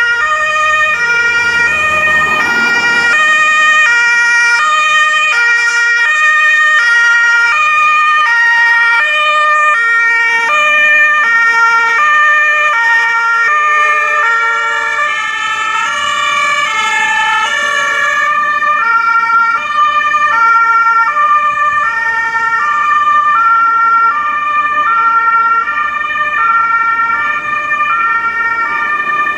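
Two-tone emergency sirens of several fire-brigade and rescue vehicles on a run, sounding together. Their alternating high-low notes overlap out of step, with a passing vehicle's engine audible under them about two seconds in.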